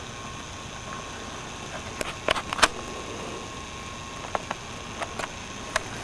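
Camcorder hiss with a faint steady tone, broken by a scatter of sharp clicks and taps from the camera being handled. The loudest cluster comes about two to two and a half seconds in, and a few single clicks follow toward the end.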